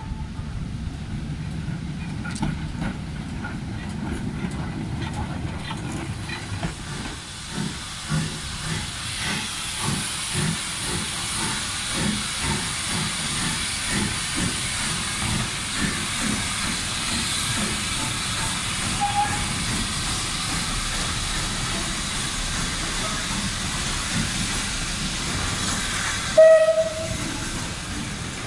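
Lancashire and Yorkshire Railway steam tank locomotive working a train of coaches, its exhaust chuffing in slow beats over a steady hiss of steam. Near the end a short whistle blast sounds, the loudest sound.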